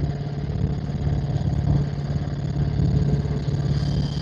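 Helicopter in flight: steady rotor and engine noise, a loud low hum with a fast, even beat.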